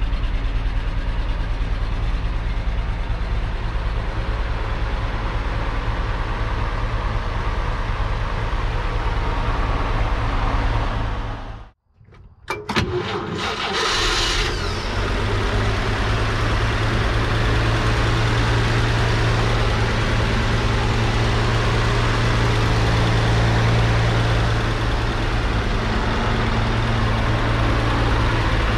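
1949 Chevrolet 3800 truck's 235 cubic-inch inline-six idling steadily. About twelve seconds in the sound drops out briefly, a few clicks follow, and the idle comes back.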